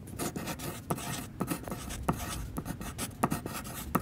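Heavy rain falling: a steady hiss with irregular sharp taps of single drops striking something close by.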